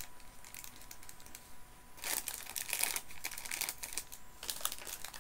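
Small plastic sweet packet crinkling as it is handled in the hands, in irregular crackles with a denser burst of crinkling about two seconds in.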